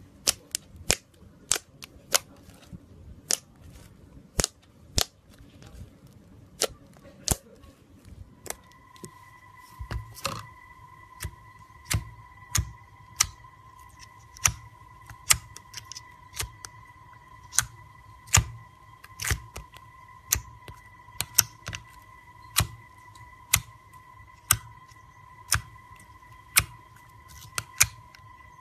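Slime being poked and pressed by fingers, giving sharp popping clicks at an uneven pace of about one or two a second as air pockets in it burst. From about a third of the way in, a steady high whine runs under the pops.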